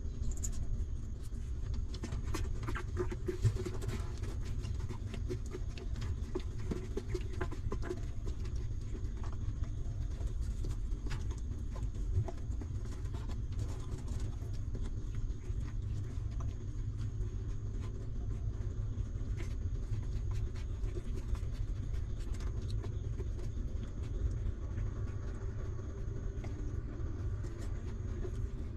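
Newborn puppies suckling at their mother dog, with small wet clicks and smacks scattered throughout. Underneath runs a steady low rumble and a faint high whine.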